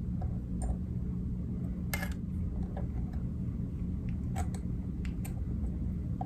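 A few light, irregular clicks and ticks from hands working thread, bobbin and marabou at a fly-tying vise, over a steady low hum.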